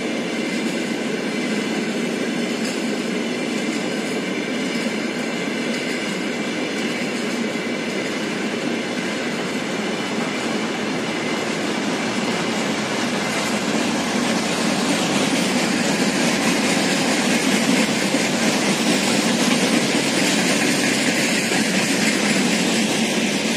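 Freight train of covered hopper wagons rolling past on the rails: a steady rumble and rattle of the wheels, with faint high ringing tones in the first half. It grows a little louder about two-thirds of the way through.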